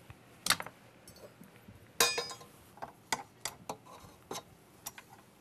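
Light metallic clicks and clinks, with one sharper, briefly ringing clink about two seconds in: a metal flat beater being fitted onto a bowl-lift stand mixer that is switched off.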